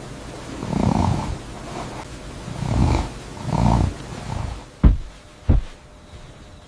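Three slow, breathy exhalations, then two sharp knocks close together near the end.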